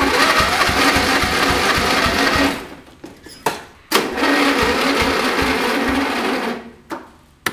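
Garden tractor's electric starter cranking its Briggs & Stratton engine in two bursts of about three seconds each, with a short pause between them. The engine does not catch: the battery is nearly dead.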